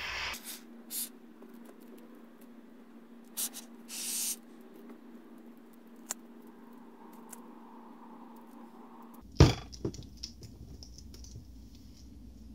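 Aerosol can of Unibond No More Gaps expanding foam spraying in a few short hissing spurts, the foam escaping out of the side at the top of its badly fitting click-on nozzle. Two sharp knocks come near the end.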